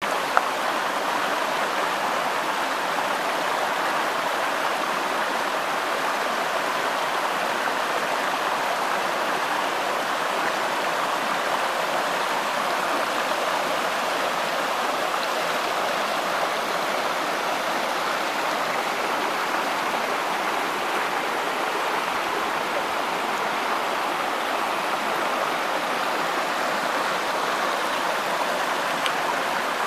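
Rocky mountain creek rushing and splashing over mossy boulders in small cascades, a steady, even rush of water. A single brief click right at the start.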